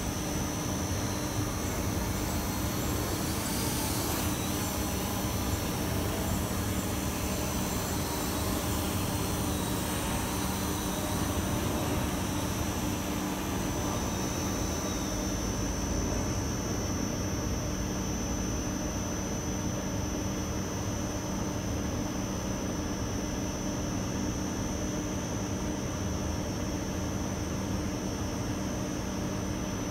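SJRC quadcopter drone's motors and propellers running steadily in flight: a constant buzz with a high whine.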